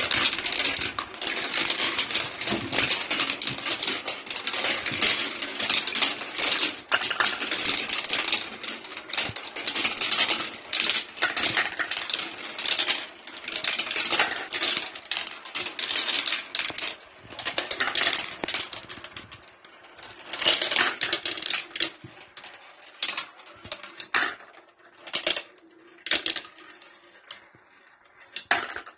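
Marbles rolling and clattering through a plastic marble run's tubes and spiral funnels: a dense, steady rattle of clicks that thins after about twenty seconds into separate clicks and short rolls.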